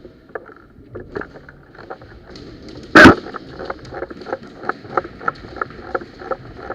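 Footsteps moving through the field at about three steps a second, starting after one loud, sharp thump about three seconds in.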